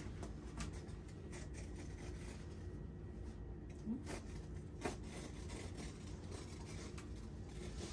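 A blade cutting through the tufting cloth of a rug: soft rubbing and scraping with faint ticks, and two small knocks about four and five seconds in.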